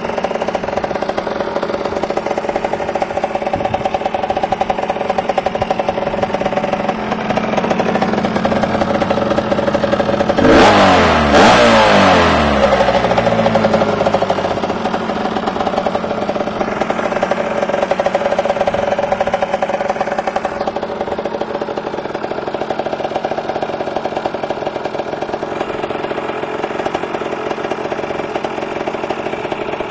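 Rieju RV enduro motorcycle's small two-stroke engine idling steadily, with one quick rev about ten seconds in that dies back down to idle.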